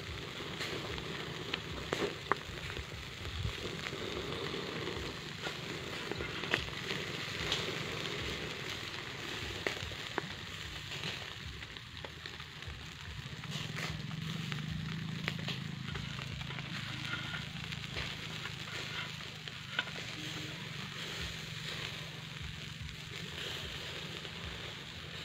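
Whole fish grilling in a wire basket over a clay charcoal stove: a steady sizzle with scattered sharp pops and crackles.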